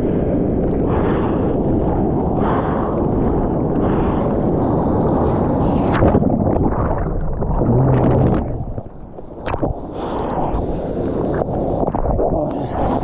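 Turbulent ocean whitewater churning and rushing over a surfer's POV camera as a breaking wave pushes him under, heard with the camera in the water among the bubbles. A couple of sharp knocks stand out, about six seconds in and again a few seconds later.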